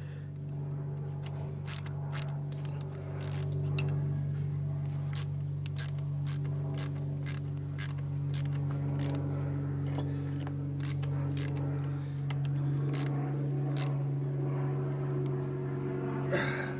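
Irregular metallic clicks and scrapes of hand tools working nuts locked together on a sheared cylinder-barrel stud, a couple of dozen sharp ticks spread through, over a steady low hum.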